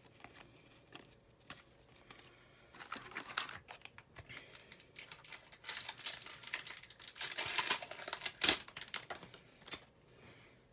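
Crinkling and rustling of a trading-card pack's wrapper and cards being handled, starting about three seconds in and running in irregular bursts, with one sharp crackle near the end.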